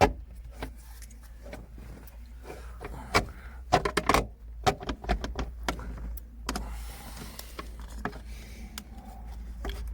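Rubber shifter boot being pushed and rubbed into its seat in the car's floor, giving scattered clicks, short knocks and rubbing, busiest a few seconds in, over a steady low hum.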